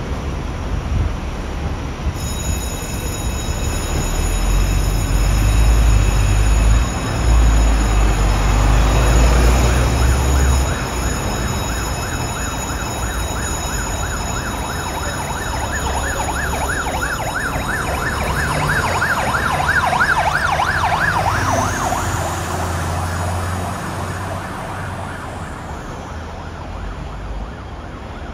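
Scania turntable ladder fire engine pulling away: a heavy diesel rumble for several seconds, then its siren sounding a rapid yelp, about three to four sweeps a second. The siren fades off toward the end as the engine drives away, over a steady high-pitched ringing tone.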